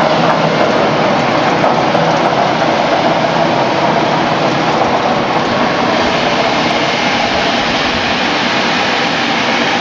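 Vibrating deoiling machine running: a spring-mounted stainless-steel perforated screen shaking, with fried snack sticks rattling across the mesh in a steady, dense rattle.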